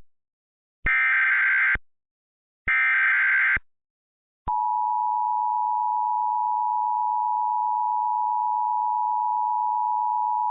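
Emergency Alert System tones: the last two of the three short screeching SAME digital header bursts, each just under a second, then about four and a half seconds in the steady two-tone EAS attention signal starts and holds without a break. The attention signal is the sign that an emergency alert message follows.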